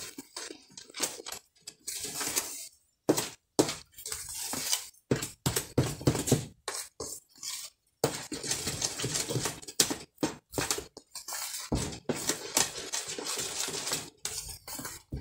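Cake batter of flour, milk and eggs being stirred by hand in a plastic mixing bowl, in irregular strokes that stop and start.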